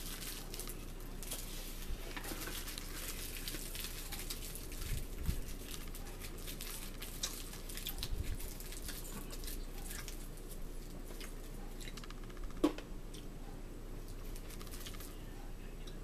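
Eating at a table: scattered small clicks and crackles of food and utensils in a bowl, with a couple of dull thumps and one sharp knock about three-quarters of the way through.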